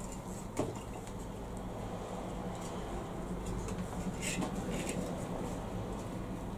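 Orange plastic bag rustling and crinkling as a garment is pulled out of it, with a single sharp knock about half a second in, over a steady low hum.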